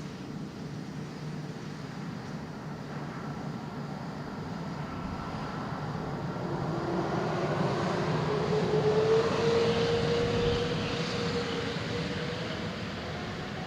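Jet airliner's engines during takeoff: the noise swells to a peak about two-thirds of the way through and then eases off, with an engine whine that rises slightly in pitch.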